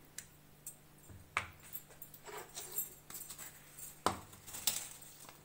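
A few scattered knocks and clinks of a spoon against a glass mixing bowl as butter is spooned in, the sharpest about four seconds in.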